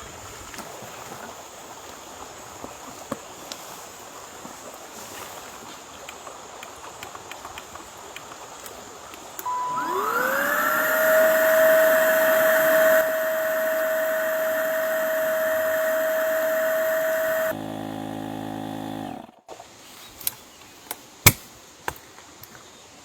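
A small electric motor starts about halfway through with a short beep, spins up with a rising whine and then runs steadily. Its sound changes near the end, it cuts off, and a few sharp clicks follow.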